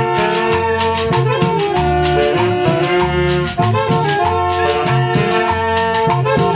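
A Latin dance orchestra playing: a brass section holds long chords and melody lines over drums and bass with a steady beat.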